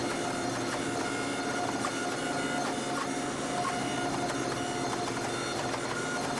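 Hydraulic forging press running, a steady drone of held tones with no hammer blows, as its dies squeeze a red-hot steel bar.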